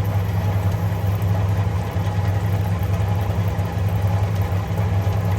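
1952 Parnell tumble dryer's electric motor running at full speed with a steady low hum, driving the drum and fan through belts and pulleys.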